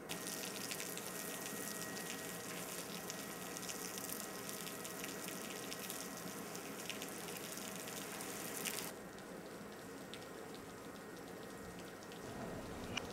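Steady rain hiss with fine pattering of drops, which cuts off abruptly about nine seconds in, leaving faint room tone.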